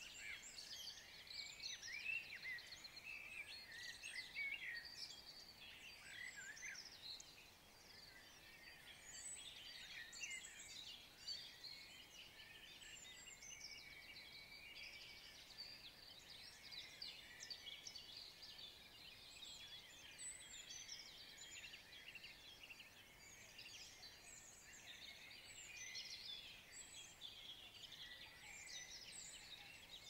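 Faint chorus of many birds singing at once, a dense tangle of overlapping chirps and quick pitch sweeps.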